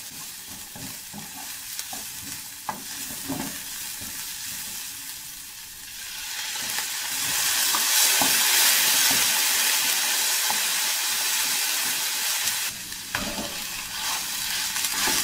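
Chopped onion, garlic and carrot sizzling in a frying pan while a wooden spatula stirs them. The sizzle gets louder about six seconds in.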